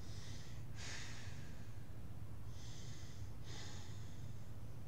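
A man breathing hard from exertion while doing ring rows: several hissing breaths, a sharp one about a second in, then two longer ones around three and four seconds, over a steady low hum.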